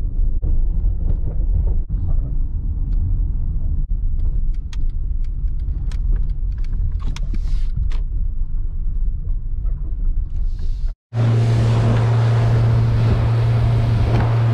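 Low road rumble inside a moving car, with a few light clicks partway through. About eleven seconds in it cuts to a boat's Honda 100 hp outboard running with a steady hum over a rush of wind.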